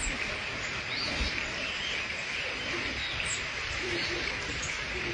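A few short, faint, high bird chirps over a steady outdoor hiss.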